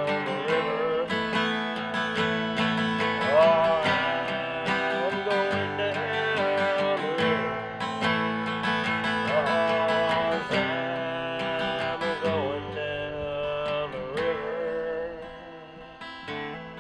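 Acoustic guitar strummed and picked live, an instrumental passage ending a country song, with notes that bend in pitch over the chords. It gets quieter near the end.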